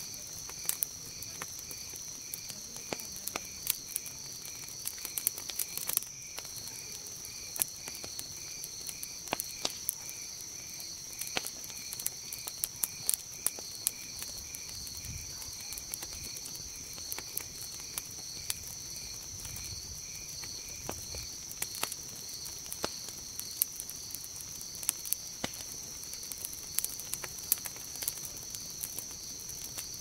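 Wood campfire crackling with frequent sharp pops over a steady, high-pitched chorus of night insects. A pulsing chirp within the chorus stops about two-thirds of the way through.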